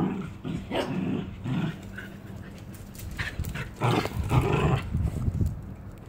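Small dogs growling in short, irregular bursts while tussling together in play.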